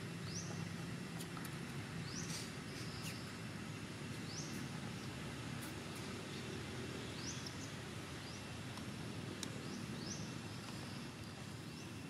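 Steady outdoor background noise with a short, high call that rises in pitch, repeated about every two seconds.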